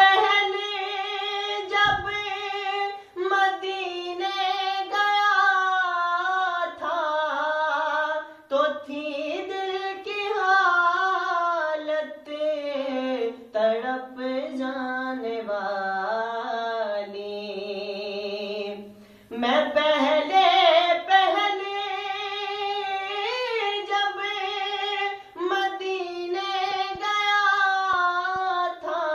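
A man singing an Urdu naat unaccompanied in a high voice, in flowing, ornamented phrases with short breaks for breath and one long held note past the middle.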